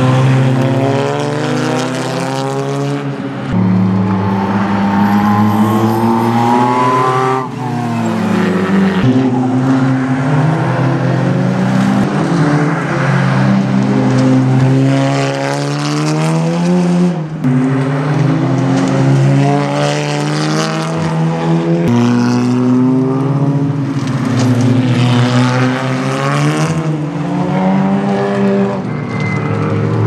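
Racing touring car engines accelerating hard past the track: the engine note climbs with the revs and drops at each gear change, over a run of short clips that cut from car to car.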